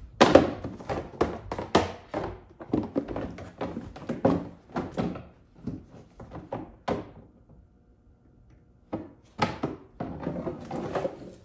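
Box cutter stabbing into and pulling through the stiff plastic wall of a recycling bin, giving a quick irregular run of knocks and cracks. The cutting stops for a second or two about two-thirds of the way through, then a few more cuts follow.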